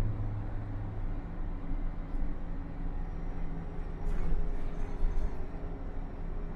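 City bus interior while under way: a steady low engine and drivetrain hum over road rumble, with a few short clicks about four seconds in.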